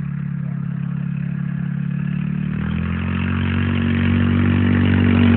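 Snowmobile engine running and growing steadily louder as the sled comes closer. Its note shifts and deepens about three seconds in.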